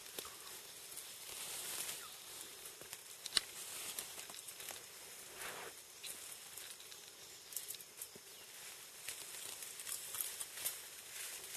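Faint rainforest ambience: a steady hiss with scattered light rustles and clicks, as of foliage and twigs.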